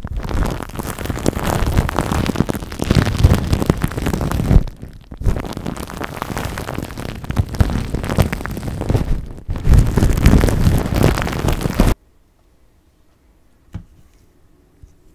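Close-miked squishing and crackling of cloud slime and plastic wrap being pressed and pulled by hand, going on in long stretches with two short pauses. It cuts off suddenly about twelve seconds in, and a single small tap follows in the quiet.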